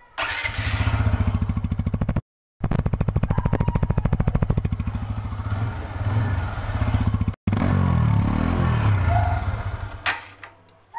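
TVS Apache RTR 160 2V BS6 single-cylinder engine running steadily with an even, rapid exhaust beat. The sound drops out completely twice for a moment, and fades away near the end.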